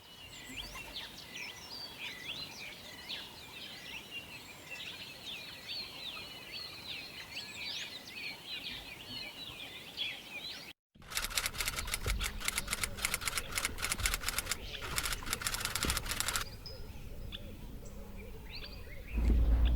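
Birds chirping and singing for about the first ten seconds. After a short break comes a fast run of clicks lasting about five seconds, and a loud low rumble sets in near the end.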